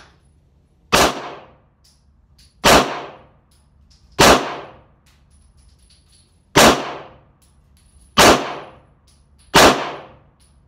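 Six single pistol shots from a Sig Sauer P365, fired one at a time about one and a half to two and a half seconds apart. Each is a sharp crack with a short ringing echo from the covered shooting bench.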